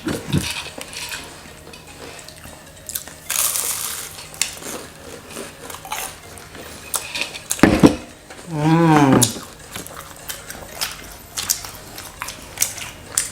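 Eating at a table: scattered crunching bites and small clicks and clinks of tableware, with a brief falling vocal sound about eight and a half seconds in.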